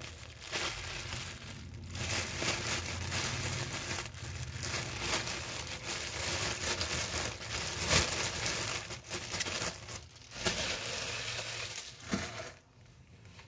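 Thin plastic packaging crinkling and tearing as it is pulled off mesh stress balls, in uneven rustling bursts. It stops about a second before the end, just after a short sharp click.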